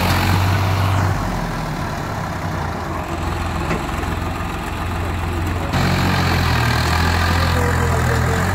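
Swaraj 855 FE tractor's three-cylinder diesel engine running hard under load as it tries to pull a loaded trolley stuck in soft dirt. The engine is louder for the first second, eases off, then comes back up sharply about two-thirds of the way through.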